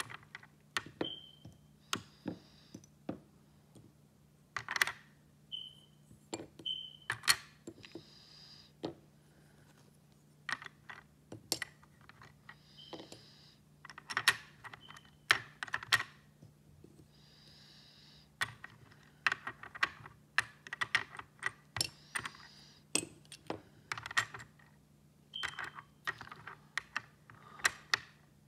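Hard plastic puzzle pieces clicking and tapping against a plastic pegboard as they are picked up, tried and set down, in irregular bursts of sharp clicks. Now and then there is a brief paper rustle from the booklet, and a few short squeaky plastic sounds.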